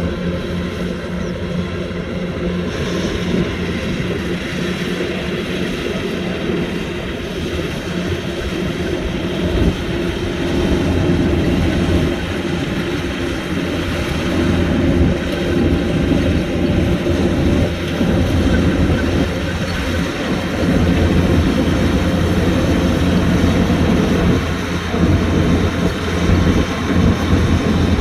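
Kubota DC-105X combine harvester's diesel engine and threshing machinery running steadily while harvesting rice, growing a little louder partway through.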